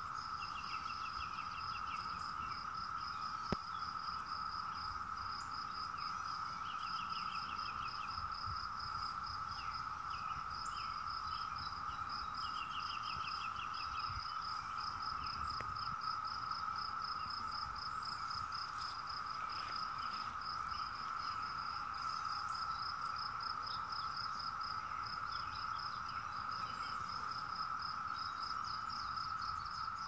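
Chorus of 17-year periodical cicadas: a steady, unbroken drone, with a fast, evenly pulsing high chirp over it. Short trills come in three times in the first half, and there is one sharp click about three and a half seconds in.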